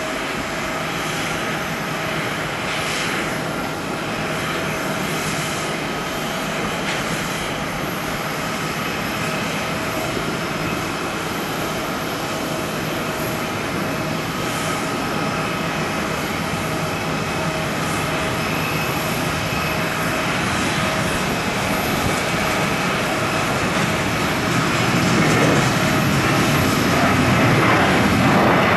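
Boeing 737-800 jet engines running with a steady whine over a broad roar, growing louder toward the end.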